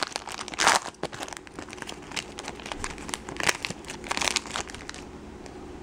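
Foil wrapper of a trading-card pack crinkling and tearing as it is ripped open and peeled back, in several short bursts that die away near the end.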